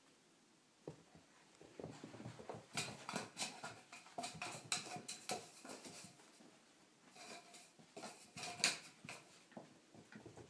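Cockapoo puppy scampering and skidding about on a hard floor, its paws and claws making quick irregular patters and scuffs in two spells, with a few short squeaks among them.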